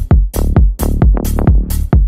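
Electronic dance music with a steady kick drum, a little over two beats a second, and bright cymbal strokes on the beat.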